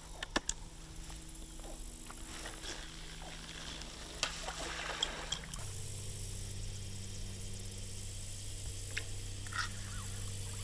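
A couple of sharp clicks as bait on a fishing rod is cast onto the pond, then soft water sloshing and trickling. Insects trill high in the background.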